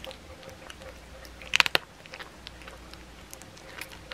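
A blue tortoiseshell cat chewing a raw chicken back, her teeth crunching through the bone in a string of short cracks and clicks, with the loudest snaps coming in a quick cluster about a second and a half in.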